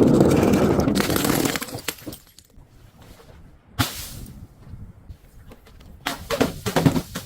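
Glass being crushed and shattered: a loud crunching break lasting about a second and a half, a single sharp crack near the middle, then a quick run of cracks and snaps near the end.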